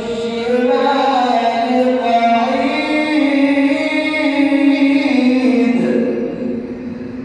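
A male reciter chanting the Quran in a drawn-out melodic style, holding long notes that slowly rise and fall, then fading out near the end.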